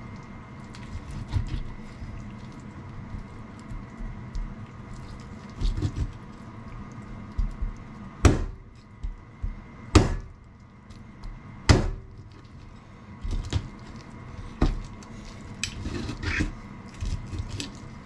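Kitchen knife working through the meat and bones of a large soft-shelled turtle on a cutting board: scattered light knocks and scrapes, with three heavy chops just under two seconds apart midway. A faint steady hum lies underneath.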